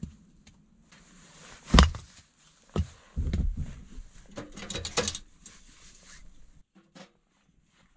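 Split firewood being handled and stacked: a sharp wooden knock about two seconds in, then a few duller thumps and a short clatter of pieces knocking together about five seconds in.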